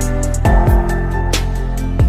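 Background music with a drum beat over held chords.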